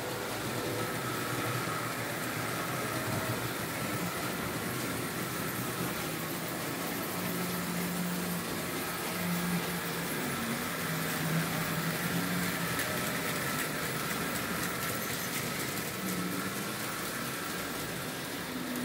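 Märklin H0 model trains running: a steady whirring of small electric locomotive motors and wheels on the track, with a faint hum that shifts in pitch now and then.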